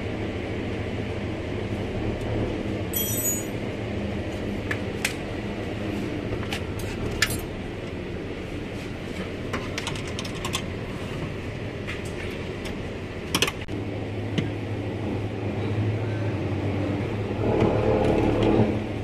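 Scattered small metal and plastic clicks, taps and a brief rattle from hands and a tool working on a car door's latch and key-lock mechanism, over a steady workshop hum. A louder stretch of noise comes near the end.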